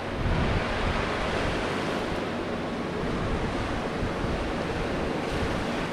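Surf washing onto the beach, a steady rush of noise, with wind on the microphone.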